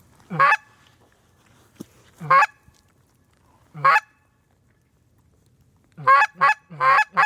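Goose honks: three single honks spaced out, then a quick run of four near the end.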